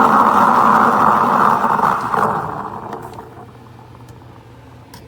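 SUMSATY espresso machine's steam wand frothing milk: a loud, steady hiss that fades out about two and a half seconds in, followed by a few faint clicks.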